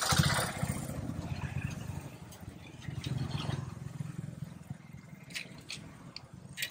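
Chips deep-frying in a large iron kadai of hot oil, with the oil sizzling over a low steady rumble, while a long perforated metal skimmer scrapes through the pan; a few sharp metal clinks come in the second half as the chips are lifted out.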